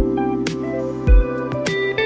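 Background instrumental music: a melody of picked notes over a low beat that falls about once a second.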